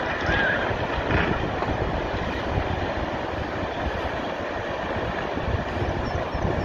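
Steady rumbling of a massive landslide as earth, mud and debris slide into the sea, churning the water.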